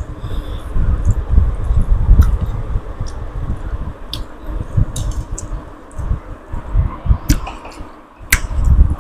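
Close-up eating sounds: chewing with uneven low thumps and sharp smacking clicks scattered through, from eating fish head with curry and rice.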